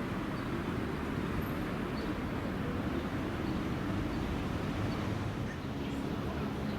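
Steady low rumble of a running vehicle or engine, even and unbroken, with no clear strokes or changes.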